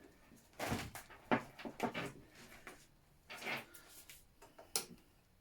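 Scooter parts and tools being handled during dismantling: a string of irregular knocks, clicks and short scrapes of plastic and metal.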